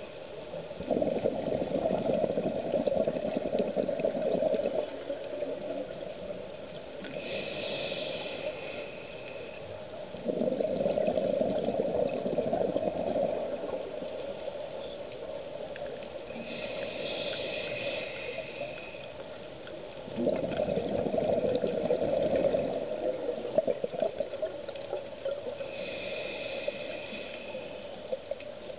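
A scuba diver breathing through a regulator underwater: three slow breath cycles, each a hissing inhale with a faint whistle from the regulator, then a loud gurgling rush of exhaled bubbles.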